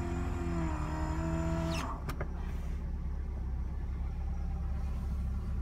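Electric power-window motor whining steadily as it drives the door glass, stopping about two seconds in with a short clunk as the glass reaches its stop. Under it, the car's fuel-injected engine idles with a low steady hum.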